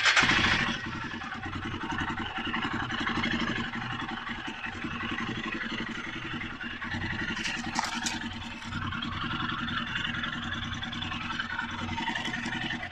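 Royal Enfield Himalayan's 411 cc single-cylinder engine, just started, running steadily at idle with its oil drained and the filter cover off, run briefly to push the remaining oil out of the pipes and pump. It is loudest as it catches at the start and cuts off near the end.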